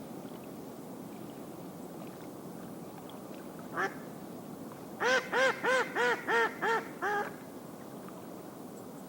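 Mallard-type duck quacking: one quack about four seconds in, then a quick run of seven quacks, evenly spaced about a third of a second apart, over a steady hiss of wind.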